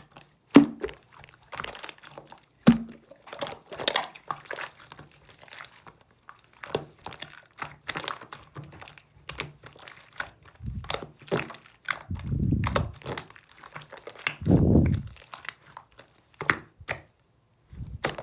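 Irregular crinkling, crackling and clicking of things being handled at close range, with a few dull low thumps in the second half.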